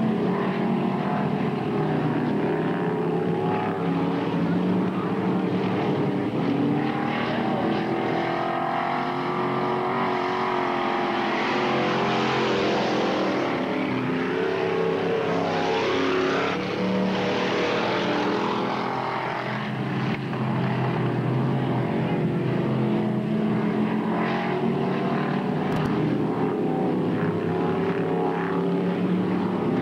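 Several dirt-track stock car engines running flat out around the oval, overlapping, their pitch rising and falling as the cars accelerate and back off through the turns.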